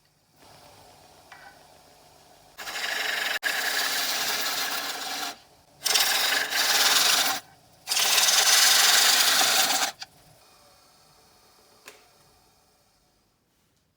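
A JET wood lathe running with a faint hum while a turning chisel cuts the spinning wood in three scraping passes of two to three seconds each. After the last pass the lathe winds down and fades out.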